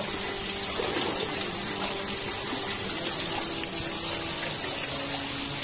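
Water falling from a canyon's rock wall and splashing into a shallow stream: a steady rush of water.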